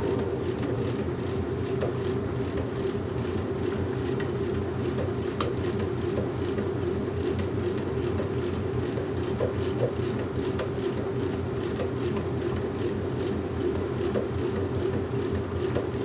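Washing machine running: a steady hum with a low rumble and faint scattered ticks.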